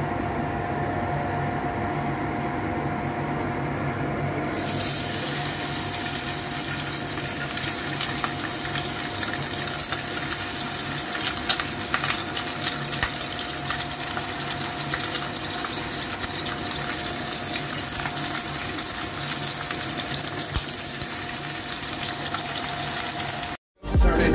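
Steady hum, then about four seconds in a loud sizzling starts as chicken wings stuffed with enoki mushrooms go into hot oil in a wok, and it keeps going as they deep-fry, with scattered pops and crackles. The sizzling cuts off just before the end.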